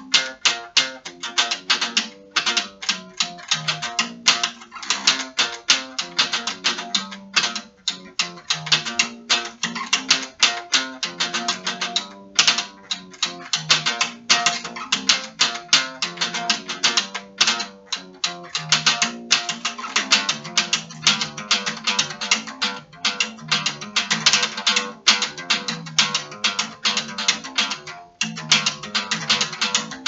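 Ibanez PNB14E acoustic bass guitar played fingerstyle: a busy run of plucked notes, several a second, in the instrument's upper register, with a few brief pauses between phrases.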